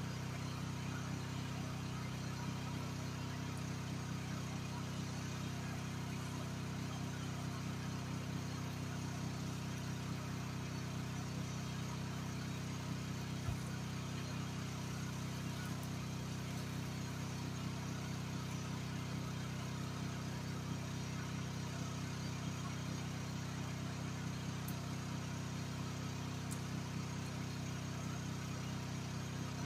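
Groundhog KH14G mini excavator's engine idling steadily, left running with the machine parked.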